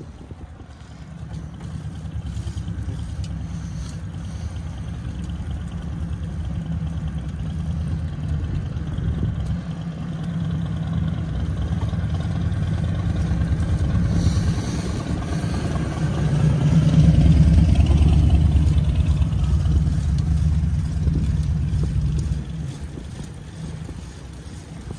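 Wind buffeting the microphone during a bicycle ride on a paved road: a low rumble that builds to its loudest a little past the middle, then drops off a few seconds before the end.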